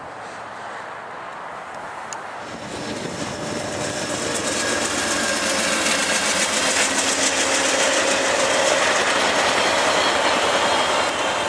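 VIA Rail passenger train led by a GE P42DC diesel locomotive passing close by at speed. The sound builds from about two or three seconds in to a loud, steady rush of rolling wheels with rapid clicking as the coaches go by.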